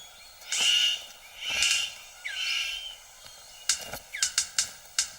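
Male superb bird of paradise displaying to a female: three harsh, rasping calls in the first three seconds, then a run of sharp clicks, about four a second, near the end. Thin gliding whistles of other birds sound faintly.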